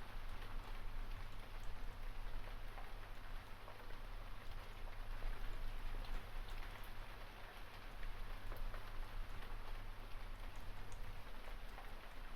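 Steady rain falling, an even hiss with scattered faint drop ticks. A low hum sits beneath it and stops about eleven seconds in.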